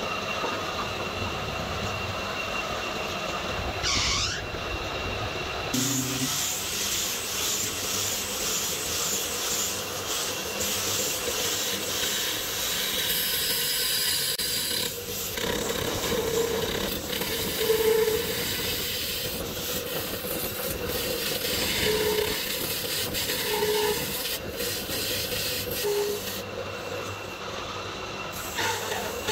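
A wooden hot pot body spinning on a belt-driven wood lathe while a hand-held chisel scrapes and cuts its surface, over the steady running of the electric motor and drive belt.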